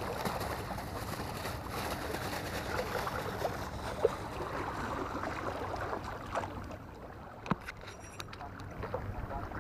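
Outdoor waterside background: indistinct voices over a steady wash of water and wind noise, with a sharp click about four seconds in and another about seven and a half seconds in.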